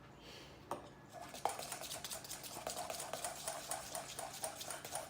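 A spoon stirring a glue and baking soda slime base in a bowl. There are a couple of knocks in the first second and a half, then a steady run of quick scraping clicks of the spoon against the bowl.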